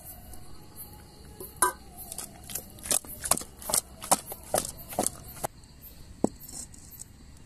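Kitchen utensils knocking and clinking during food preparation: a quick run of sharp knocks, about two or three a second, then one last knock after a short gap.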